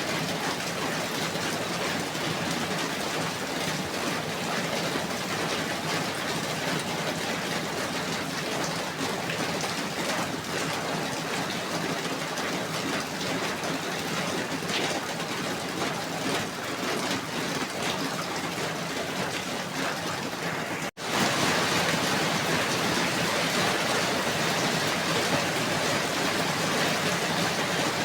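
Steady rain falling, an even continuous hiss. About 21 seconds in it cuts out for an instant and comes back slightly louder.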